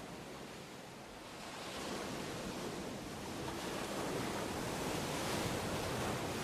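Steady rush of ocean surf, slowly growing louder.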